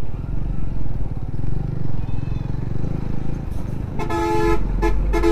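Motorcycle running at low speed on a rough dirt road, a steady low rumble. About four seconds in, a vehicle horn honks: one half-second toot, then a few quick short toots.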